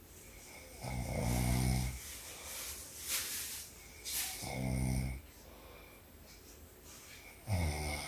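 A woman snoring in her sleep: three low, rattling snores about three seconds apart, with breathy hisses between the first and second.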